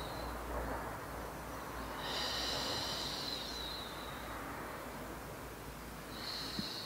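A woman's long breaths out, one about two seconds in and another starting near the end, each lasting about two seconds, in time with slow resistance-band bicycle crunches.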